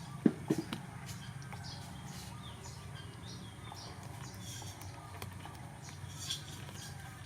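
Small birds chirping again and again, short high notes, some falling in pitch, over a steady low hum. Two or three sharp knocks come in the first second.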